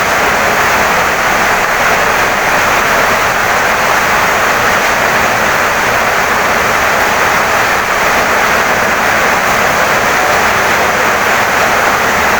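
Heavy rain pouring down steadily on a wooden house, an even, unbroken hiss with no pauses or single drops standing out.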